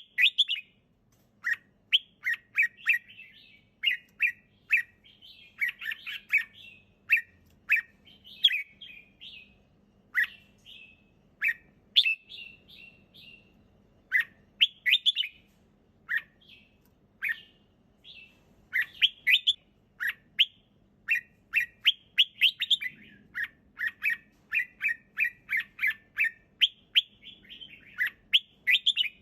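Red-whiskered bulbul singing: short, clear chirping phrases, one after another with brief pauses.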